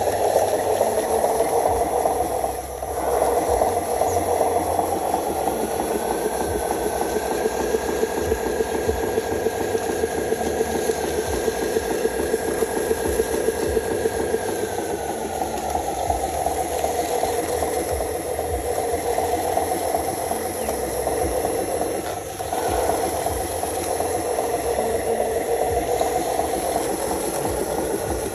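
Radio-controlled model vehicle running: a steady, fast rattling mechanical drone. A faint whine rises about six seconds in, holds, and falls away about fifteen seconds in. The sound dips briefly twice, near three seconds and near twenty-two seconds.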